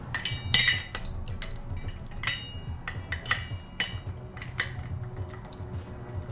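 Irregular metallic clinks and taps, a dozen or so, some ringing briefly, as a wrench works the sprocket bolts on a minibike's rear wheel hub; the loudest cluster comes about half a second in.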